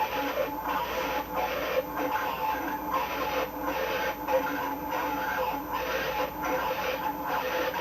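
Heavily distorted audio from a weather-alert broadcast relay: a harsh, noisy buzz with a few steady tones running through it and short regular dips.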